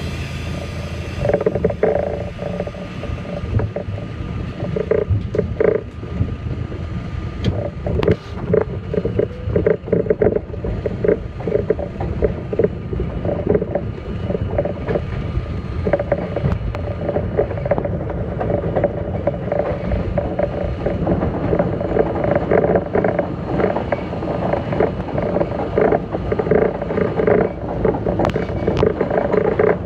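R32 subway train running along an elevated track: a steady rumble from the wheels and running gear, with frequent irregular clacks from the wheels crossing rail joints.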